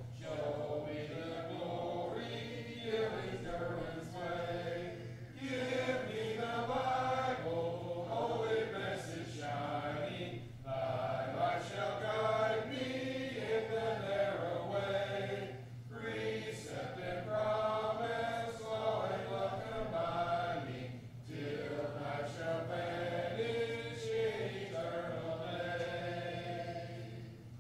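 Congregation singing a hymn a cappella, with no instruments, in phrases of about five seconds separated by short breaths. A steady low hum runs underneath.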